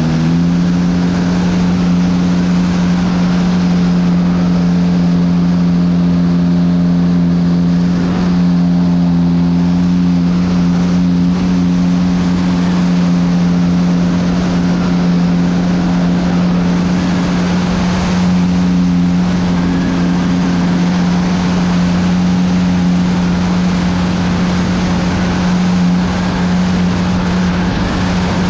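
Onboard sound of a radio-controlled Piper Cub model plane in flight: the motor and spinning propeller hum at a steady pitch over the rush of wind.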